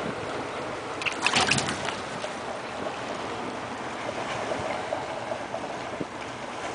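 Steady wind and surf noise on an ocean pier, with a short cluster of sharp sounds about a second in.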